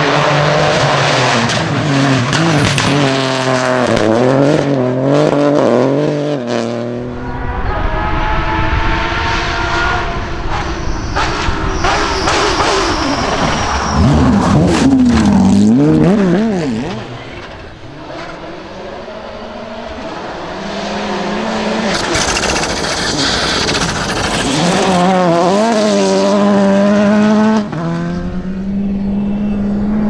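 Rally cars driven flat out on a gravel and tarmac special stage, one after another. Their engines rev up and drop back again and again through gear changes as each car passes.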